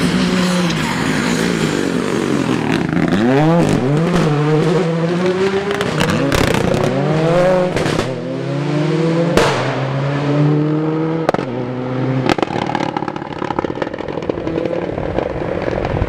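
Rally car engine at full throttle, its pitch climbing in steps as it shifts up through the gears, with several sharp cracks from the exhaust between the pulls.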